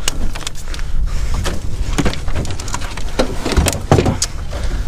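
Irregular knocks, clunks and rattles on an aluminum boat hull and its fittings as gear and a person shift about, over a steady low rumble.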